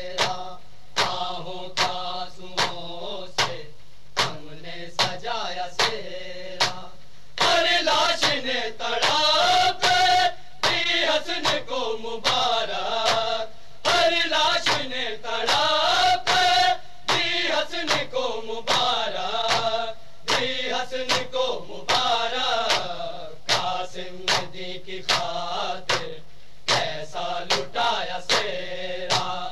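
Men's voices chanting an Urdu noha (Shia lament): a lead voice answered by a chorus that swells louder for the middle stretch, over a steady beat of sharp hand strikes on the chest (matam), roughly two a second.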